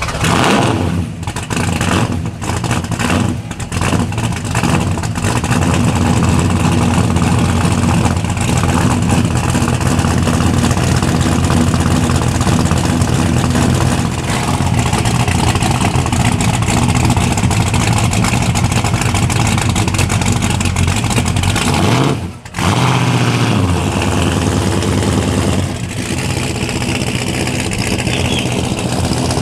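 Loud V8 muscle-car engine sound: exhaust running and revving, choppy in the first few seconds, then steady. The sound drops out briefly about three-quarters of the way through.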